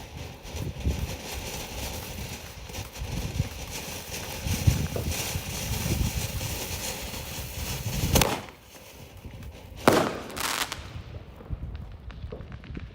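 Consumer fireworks going off: a steady run of bangs and crackling, with loud sharp reports about 8 and 10 seconds in, then dying away near the end.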